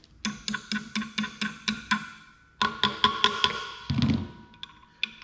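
Light hammer taps on steel, about four a second, seating a short key into a motor shaft's keyway. A second quicker flurry of taps near the middle leaves a metallic ring hanging for a second or so.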